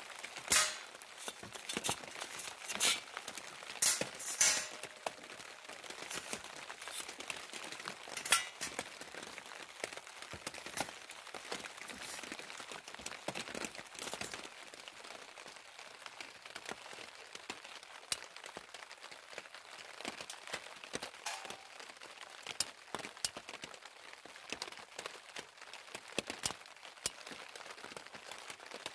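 Metal clinks and knocks as a small Tomshoo wood-burning camp stove is handled and set up. Several sharp knocks come in the first nine seconds, then sparser light ticks, over a faint steady patter of rain on a plastic tarp.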